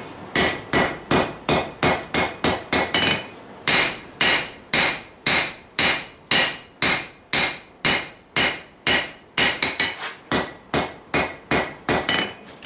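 Hand hammer striking hot steel on a Vulcan 90-pound anvil in a steady forging rhythm, about two to three blows a second, each with a short metallic ring, as a blade is drawn out.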